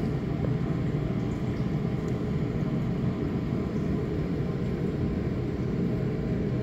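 Steady low background rumble of room ventilation, even and unchanging.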